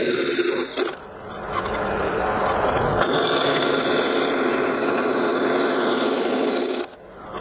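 Benchtop drill press running, its twist bit cutting through a thick steel plate to make plug-weld holes. The sound dips briefly about a second in and drops away near the end.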